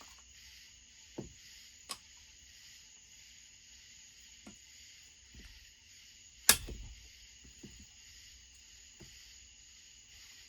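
Scattered clicks and knocks of hand tools and small metal parts on a chainsaw being taken apart, with one sharp, loud clank about six and a half seconds in, over a steady high hiss.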